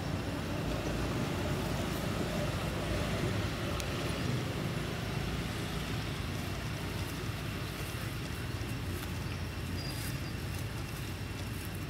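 Steady low background rumble, like distant road traffic, with a few faint light ticks.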